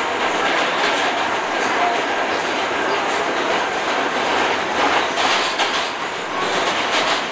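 New York City subway car running, heard from inside the car: a loud steady rattling noise with scattered clicks.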